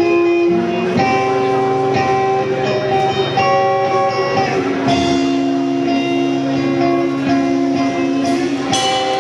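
Live rock band music: electric guitars playing ringing, sustained chords that change every second or so.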